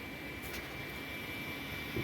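Steady car noise heard from inside the cabin, with a thin high whine held throughout and a faint click about half a second in.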